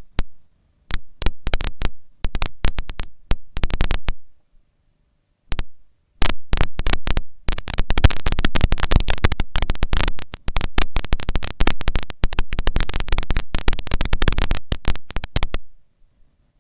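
Faulty action-camera microphone recording: loud crackling noise that cuts in and out abruptly, with stretches of dead silence between. This is the broken microphone's terrible sound.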